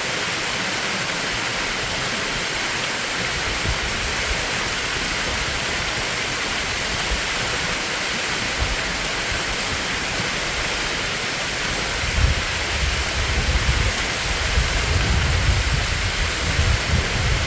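A mountain stream rushing steadily over rocks. From about twelve seconds in, irregular low rumbles come and go over it.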